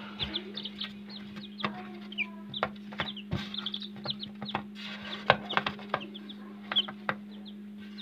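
Kadaknath chicks peeping in repeated short, high cheeps, with scattered sharp clicks and knocks from the chicks being handled, the loudest about five seconds in. A steady low hum runs underneath.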